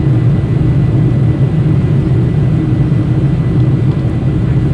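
Steady low drone inside the cabin of a Boeing 747-400 climbing after take-off: its Pratt & Whitney PW4000 turbofan engines at climb power, heard from a window seat over the wing.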